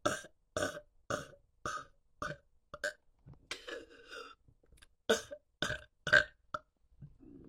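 A woman burping over and over: a quick string of short burps about half a second apart, with a longer, drawn-out one about three and a half seconds in. The loudest burp comes about six seconds in.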